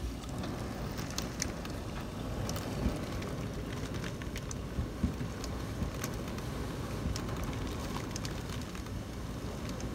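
Heavy storm rain driven by strong wind, a steady rushing noise, with scattered sharp ticks of drops striking the window glass.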